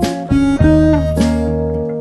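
Background music: acoustic guitar with a harmonica playing held notes, one bending down in pitch about a second in.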